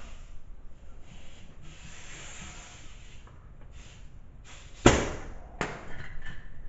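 Sandpaper rubbed by hand in short strokes. Two sharp knocks come nearly five seconds in, the second under a second after the first.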